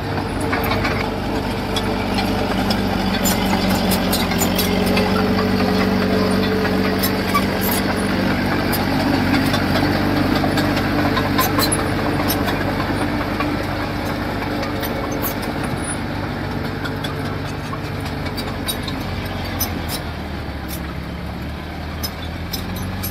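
Diesel engine of heavy earthmoving machinery running steadily. It works harder and louder through the first half, then settles back, with scattered sharp clicks and clatter over it.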